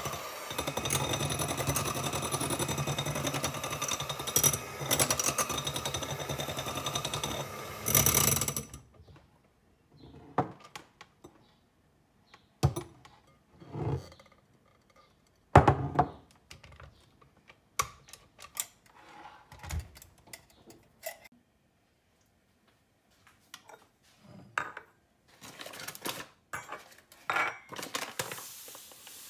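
Electric hand mixer running steadily with a motor hum and whine as its beaters whip egg whites in a glass bowl, switching off abruptly about nine seconds in. After that come scattered knocks and clinks of the beaters and glass bowls being handled and set down on the counter, the loudest about halfway through.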